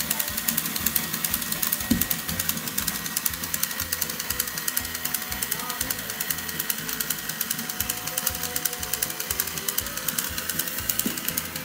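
Battery toy train set running, its small geared mechanism making a fast, steady clicking, with a couple of light knocks.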